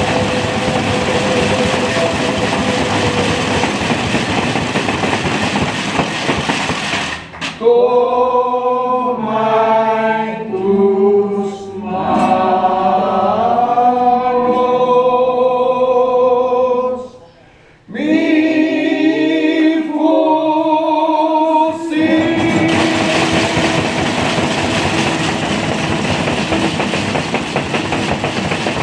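A group of voices singing a song together, with guitar seen accompanying them. The singing is heard through a rough hiss at first. About a quarter of the way in it turns clear, breaks off briefly midway, and goes back under the hiss about three-quarters of the way through.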